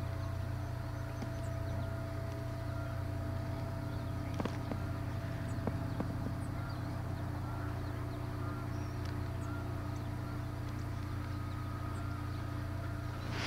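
Quiet outdoor ambience: a steady low hum with faint, short high chirps scattered through it and a couple of soft clicks about four and six seconds in.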